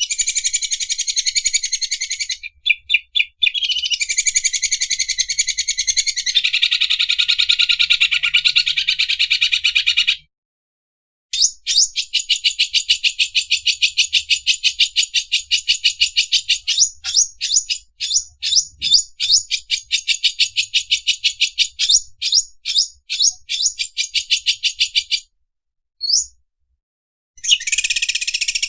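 Greater green leafbird (cucak ijo) singing a long, rapid train of high-pitched ticking notes that sounds like an overlock sewing machine running. The song breaks off briefly twice, about ten seconds in and again near the end.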